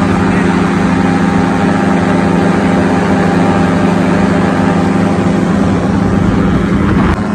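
Tandem paramotor's engine and propeller running steadily at cruise power in flight, a loud even drone, with a brief break near the end.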